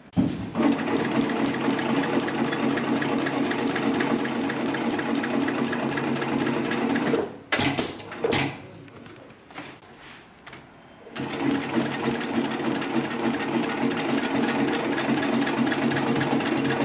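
HIGHTEX 7204MD twin-needle heavy-duty lockstitch sewing machine running at speed, stitching an ornamental pattern with a fast, even stitch rhythm. It stops about seven seconds in, with a few clicks during a pause of about four seconds, then starts up and runs again.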